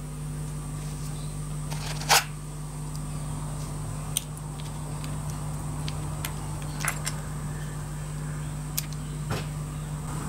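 Light clicks and taps of small metal model-engine parts being handled and worked apart by hand, a handful of separate clicks with the sharpest about two seconds in, over a steady low hum.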